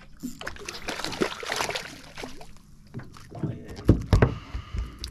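A freshly landed grunter flapping and thudding on a boat's carpeted deck, with the heaviest thumps about four seconds in, among smaller knocks.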